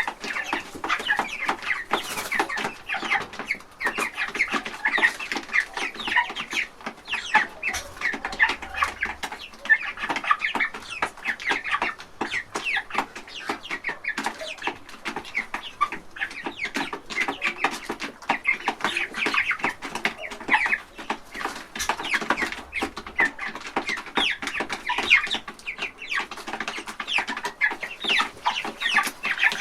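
A flock of young chickens in a large chicken house, many birds clucking and cheeping at once in a continuous din, with rapid pecking clicks as they feed from a trough.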